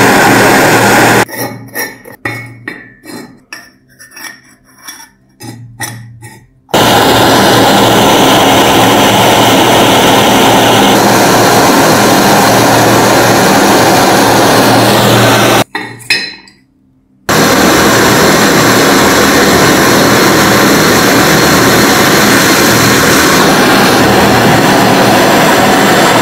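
Gas blowtorch hissing loudly and steadily as it heats a metal joint for soldering. The hiss cuts off twice, for about five seconds near the start and briefly past the middle, leaving light metallic clinks and taps.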